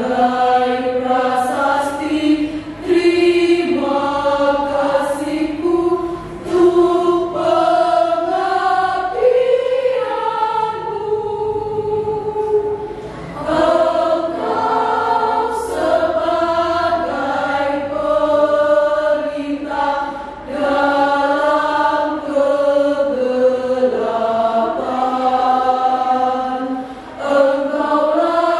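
Women's choir singing in parts, holding long notes in phrases with short breaks for breath between them.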